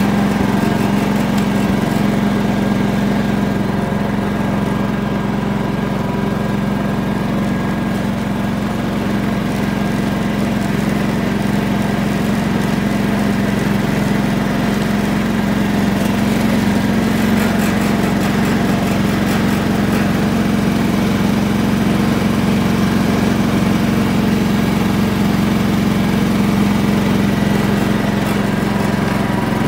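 Riding lawn mower's small engine running at a steady speed, a constant hum that doesn't change in pitch.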